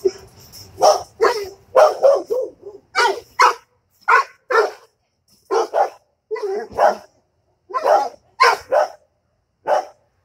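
A dog barking repeatedly, in quick pairs and threes of barks, at a dog on the other side of a fence.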